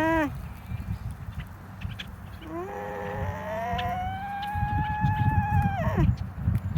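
Alpaca calling. The tail of one call ends at the very start. About two and a half seconds in comes a long high call that rises in pitch, holds for about three seconds and drops off at the end. A low rumble runs underneath.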